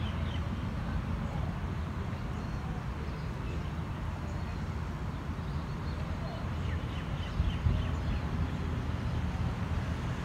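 Outdoor ambience: a steady low rumble, with a few short bird chirps about seven seconds in.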